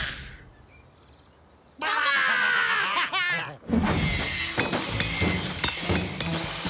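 Cartoon construction racket. After a near-quiet pause, a run of high gliding cries and whistles comes in about two seconds in. From about four seconds a dense clatter of bangs, knocks and breaking takes over.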